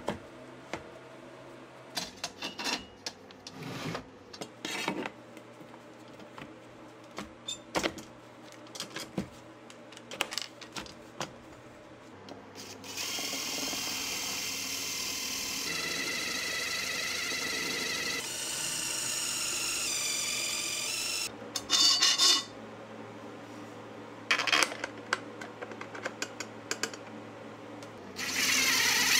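Cordless drill boring through aluminium angle. For the first dozen seconds there are scattered clicks and knocks of handling. Then the drill runs steadily for about eight seconds, its whine stepping in pitch as the bit works through the metal. A few loud knocks follow, and a second drilling starts near the end.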